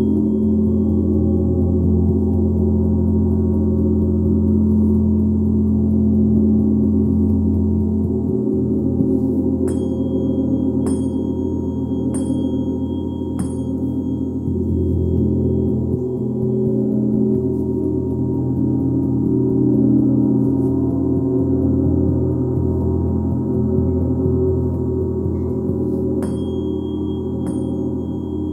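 A gong ringing on and on in a dense, steady wash of many overlapping tones. Light, bright-ringing taps come in four times, evenly spaced, about a third of the way in, and again a few times near the end.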